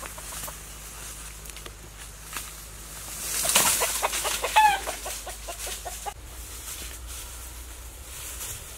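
A rooster clucking in a quick run of short notes with one higher squawk, about four seconds in. Just before it comes a loud rustle of dry bamboo leaves.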